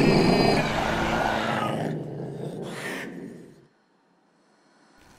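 Horror-film jump scare: a creature's loud scream over a roaring sound effect, loudest at the start and dying away over about three and a half seconds into near silence.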